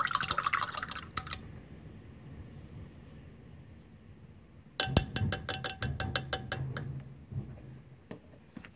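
Face-painting brushes clinking and rattling against their container as a liner brush is picked out: a quick run of sharp clicks at the start, then a longer run of about a dozen clicks between about five and seven seconds in.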